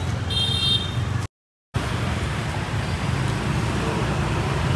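Steady rumble of road traffic passing along the street, with a short high-pitched tone about half a second in. The sound cuts out completely for a moment after about a second and a half, then the traffic rumble carries on.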